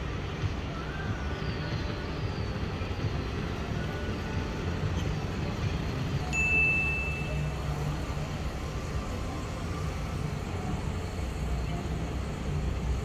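Steady low hum and rumble of an electric road-train shuttle moving slowly across a pedestrian plaza. One short, high beep sounds about six and a half seconds in.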